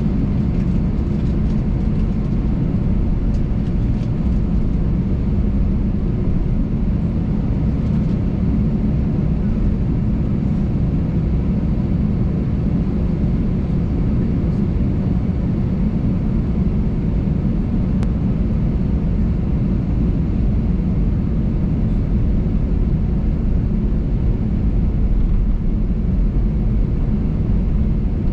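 Steady low cabin rumble inside an Airbus A320 on the ground with its engines at idle, heavy in the bass and even in level.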